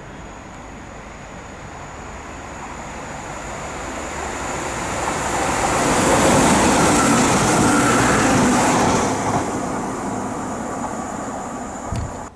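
Northern Class 195 diesel multiple unit approaching and passing. Its engine and wheel-on-rail noise builds to a peak about halfway through, then fades as it goes away, with a short thump near the end.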